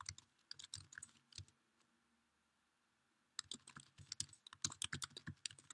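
Faint typing on a computer keyboard: scattered key clicks, a pause of about two seconds, then a quicker run of keystrokes from a little past the middle.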